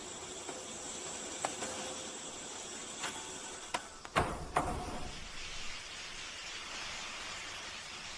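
A steady hiss of food sizzling in a hot pan, broken by a few sharp clicks and knocks in the middle, the loudest just past four seconds in.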